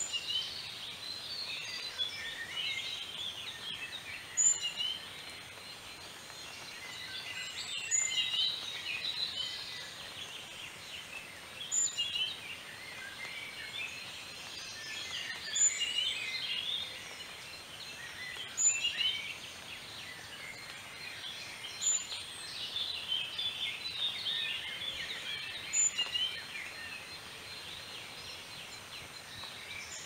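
A chorus of many small birds chirping and twittering at once, with one short, high call repeating about every four seconds.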